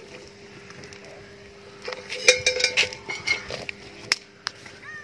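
Steel pouring vessel clinking and knocking as the milk pouring ends: a quick cluster of metallic clinks about two seconds in, then two sharp clicks, over a faint steady hum.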